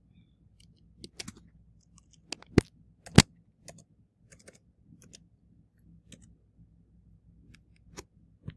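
Scattered light clicks and taps of hands working a computer close to the microphone, with two sharp, louder clicks about two and a half and three seconds in.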